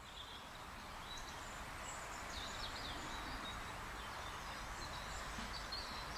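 Faint countryside ambience: a steady background hiss with small birds chirping now and then, the sound fading up over the first second.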